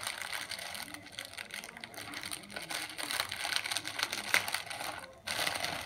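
Small plastic bags of diamond painting drills being handled: crinkling plastic with the tiny resin drills rattling and clicking inside. There is a sharp click about four seconds in, and the sound stops briefly just after five seconds.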